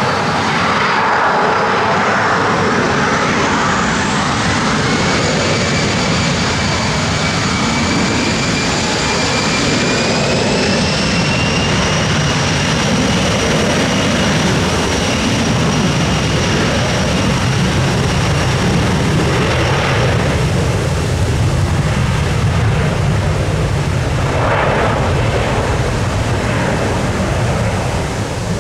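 Airliner engines running loud, with a high whine that climbs over the first several seconds and then holds steady over a broad rumble.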